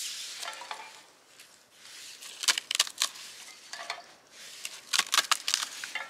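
Dry bark and twigs crackling and snapping in the hands, with light clinks, as they are loaded into a Vargo titanium hexagon wood stove. Irregular sharp snaps, clustered at about half a second, three seconds and five seconds in.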